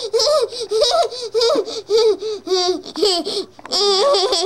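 A young girl laughing close to the microphone in a string of short, high-pitched bursts.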